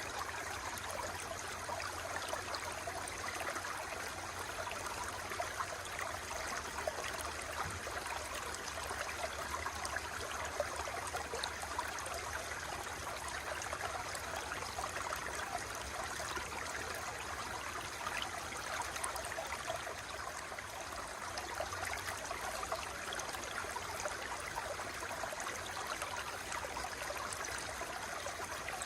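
Running water flowing steadily, an even, continuous babble without breaks.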